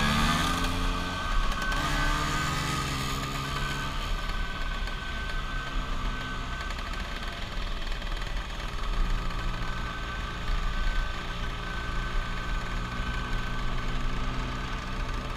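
Vespa scooter engine running at a steady riding speed, with a constant low rumble of wind on the microphone.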